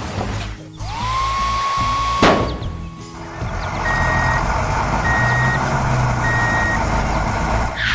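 A construction vehicle's reversing alarm beeps three times, evenly spaced, over a running engine. Before the beeps, a tone rises and holds for about two seconds, with a sharp click partway through.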